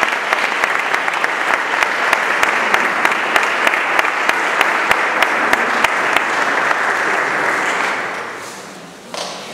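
Audience applauding, with one person's sharp claps standing out close to the microphone; the applause dies away about eight seconds in, and a single short knock follows near the end.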